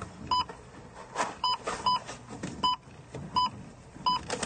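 Short electronic checkout-scanner beeps, about six at uneven intervals, each one brief steady tone. Rustling and knocking of items being handled fill the gaps between them.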